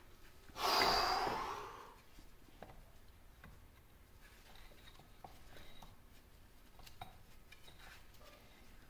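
A person's long exhale or sigh close to the microphone, starting suddenly about half a second in and fading over about a second and a half. Afterwards, faint scattered clicks and small metal knocks from handling the lathe's apron parts.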